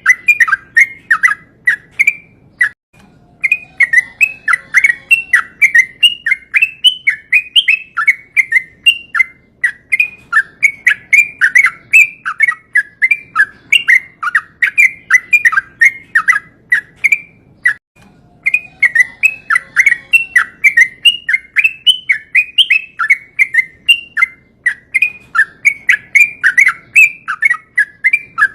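Yellow-vented bulbul (trucukan) singing a long continuous song of quick, bubbly notes, about three a second, broken by two short pauses. It is the sustained 'ropel' song, played as a lure for other bulbuls.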